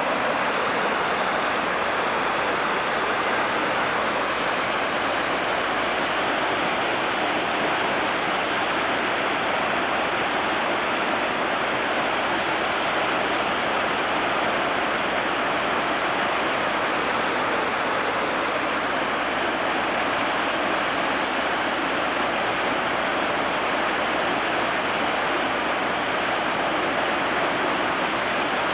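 Rushing water from a stream running high after rain: a loud, steady, even rush with no breaks.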